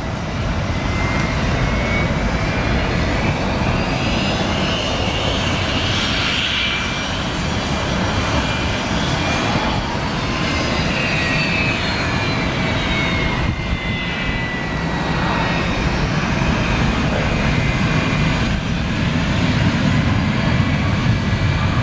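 Airliner jet engines at taxi power: a steady rumble with whining tones that slowly rise and fall in pitch as the aircraft pass, growing a little louder near the end.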